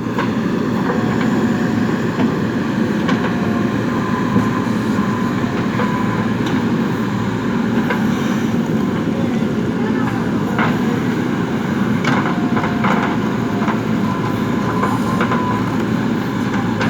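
JCB 3DX backhoe loader's diesel engine running steadily under work, with scattered knocks and clanks and a few brief squeals.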